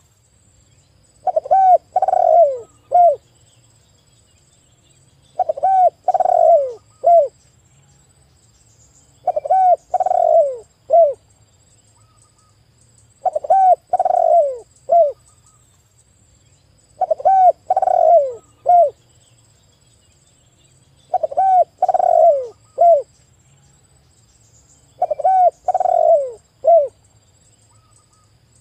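Spotted dove cooing in seven repeated phrases about four seconds apart. Each phrase is a quick run of three or four falling coos, the middle ones longest and loudest.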